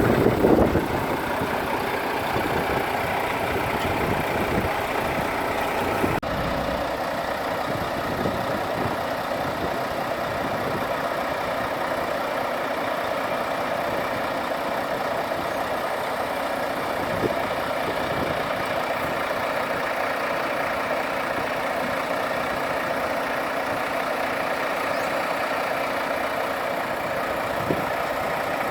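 Diesel engine of a Volvo truck-mounted concrete pump running steadily at a constant speed. About six seconds in, the sound changes abruptly and its deep rumble drops away.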